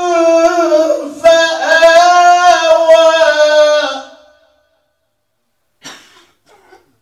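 Male Quran recitation in melodic tajwid style, one long ornamented vocal phrase with held, wavering notes that fades out about four seconds in. A short, faint noise follows near six seconds.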